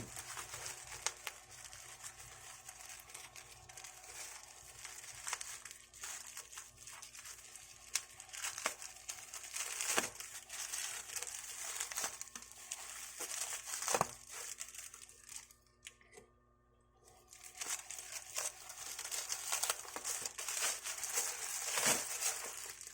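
Plastic parcel packaging crinkling and being torn open by hand, with scattered sharp crackles; it pauses briefly past the middle, then resumes.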